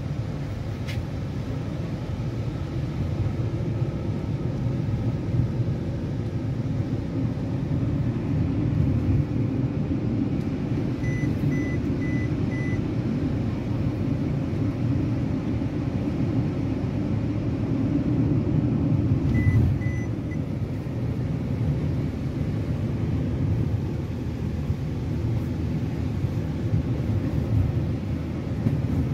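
Steady low rumble of engine and road noise inside a van's cabin while driving. About eleven seconds in, four quick high electronic beeps sound, and three more come at about twenty seconds.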